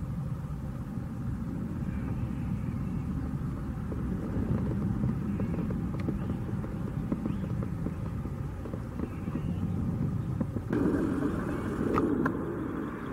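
Distant low rumble of a Boeing 737-700's CFM56-7B jet engines as the airliner climbs away after takeoff. The rumble is steady, then shifts abruptly about eleven seconds in.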